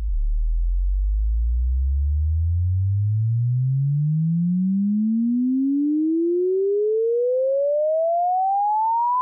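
Sine-wave frequency sweep used as a headphone test signal. It starts suddenly and glides steadily upward from deep bass to about 1 kHz.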